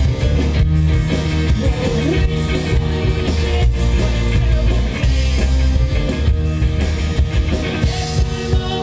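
Indie rock band playing live, loud and continuous: electric guitar, bass guitar and drums coming through a stage PA.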